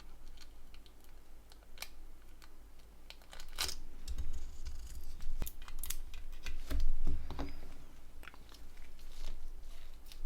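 Small clicks, taps and crackles of Nokia N91 phone parts being handled and fitted together during reassembly, with a few dull low thumps in the middle.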